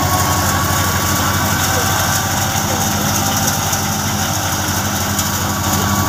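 Tractor-driven wheat thresher running steadily: the tractor engine's drone under the thresher's whirring and hiss, with a thin steady whine.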